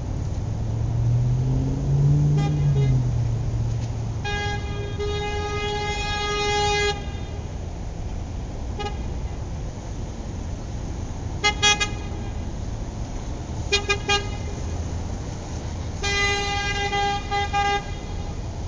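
Car horn honking over steady traffic noise. It gives a long blast of nearly three seconds, a short blip, two pairs of quick double toots, and a broken long blast near the end. In the first few seconds a passing vehicle's engine rumbles, rising and falling in pitch.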